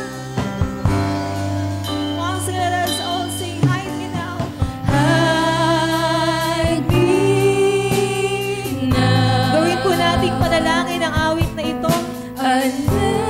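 Live worship band playing a slow gospel song: a woman sings the lead melody with backing singers, over keyboard, electric guitar, bass guitar and drums.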